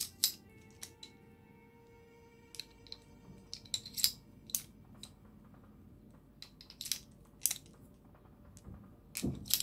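Irregular sharp metallic clicks and clinks from loading a King Arms Single Action Army gas airsoft revolver: the cylinder turned by hand at half cock and shells pushed into the chambers through the loading gate, one by one, with a cluster of clicks near the end.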